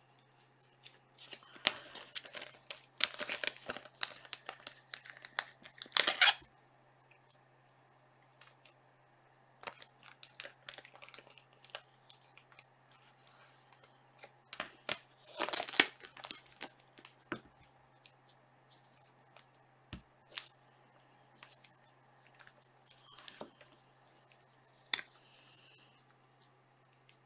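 Trading-card packaging being handled: plastic and paper crinkling and tearing-like rushes, the loudest about six seconds in and again midway, with scattered taps and clicks between. Near the end a sharp click and a brief scratch of a marker.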